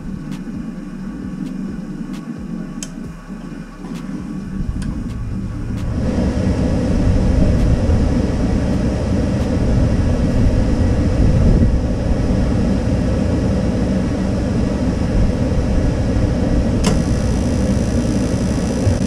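Weil-McLain CGi gas boiler starting up on a call for heat. A few sharp clicks come first, then about six seconds in a steady rumble swells up as the burners light and then holds.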